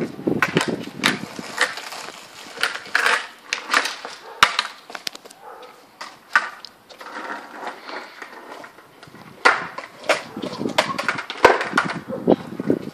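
Skateboards rolling on asphalt, with many irregular sharp clacks as decks and wheels hit the pavement.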